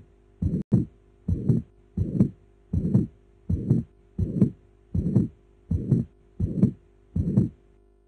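Heartbeat with the holosystolic murmur of mitral regurgitation: each beat is a murmur lasting through systole from the first to the second heart sound, repeating about every 0.7 s (around 80 beats a minute), about ten beats.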